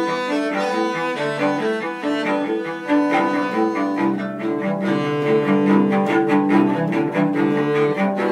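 Cello playing a quick run of bowed notes, growing louder about three seconds in, with a low held note joining about four seconds in.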